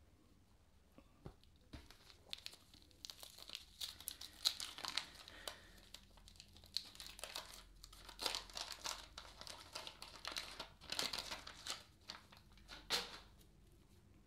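Waxed-paper wrapper of a 1981-82 Topps basketball card pack crinkling and tearing as it is unfolded and opened, in a run of crackly bursts that starts about two seconds in.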